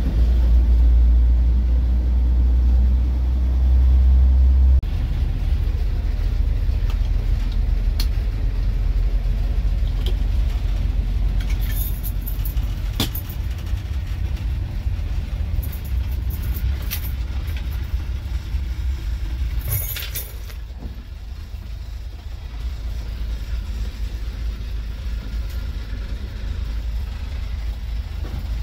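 A 1954 Chevrolet pickup's six-cylinder engine running as the truck drives, heard from inside the cab as a deep, steady rumble. It is loudest for the first five seconds, then settles lower, with a few sharp clicks and rattles along the way.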